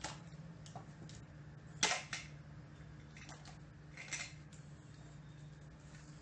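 Plastic toy kitchenware and toy food being handled: a few scattered clicks and light knocks, the loudest about two seconds in, over a low steady hum.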